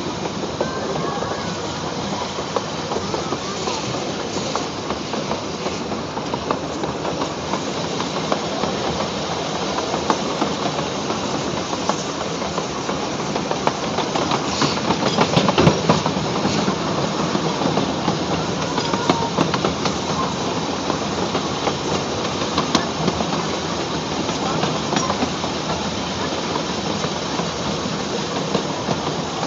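Park train hauled by a 4-4-0 steam locomotive, heard from the car right behind it: steady running clatter of wheels on the track with a hiss, louder for a few seconds about halfway through.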